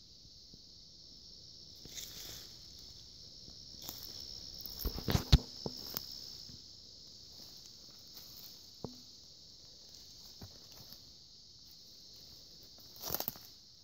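A steady, high-pitched chorus of insects, with a cluster of sharp cracks and thumps about five seconds in, a single click near the middle and a second short cluster near the end.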